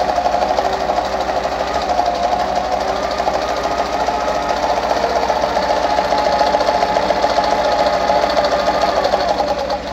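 Pfaff 230 sewing machine running steadily while sewing a wide zigzag stitch, with a rapid, even clatter. It stops just before the end.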